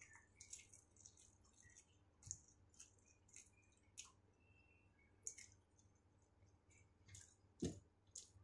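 Faint eating sounds: quick clicks and smacks of someone chewing instant noodles, with a single duller knock near the end.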